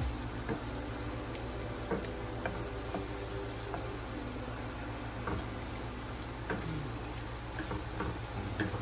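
Shrimp sizzling in garlic butter in a stainless steel skillet as a wooden spoon stirs them, with scattered light clicks and scrapes of the spoon against the pan.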